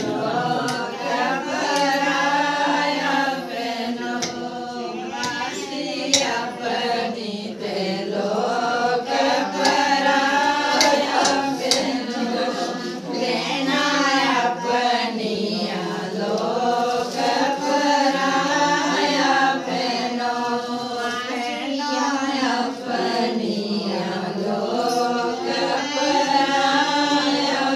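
A group of women singing a traditional wedding folk song together, in long, wavering held notes, with a few sharp knocks now and then.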